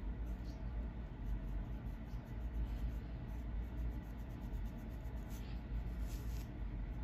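Plastic fine-tooth comb scratching along a scalp parting to lift dandruff flakes: a few soft, dry scratching strokes, clearest about half a second in and again about five to six seconds in, over a steady low rumble.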